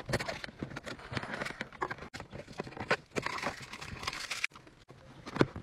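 Hands rummaging through clutter in a car's center console and cupholders: a busy string of light clicks, knocks and rustles as cans, a lighter and other small items are picked out.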